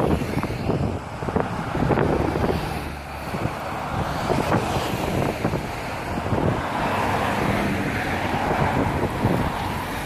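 Cars going by on a road, tyre and engine noise, mixed with wind buffeting the microphone.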